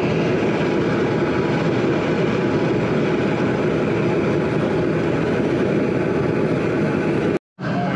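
Propane jet burner under a large aluminium boil pot, burning with a steady, loud rush of gas and flame while the water heats. The sound breaks off for a moment near the end.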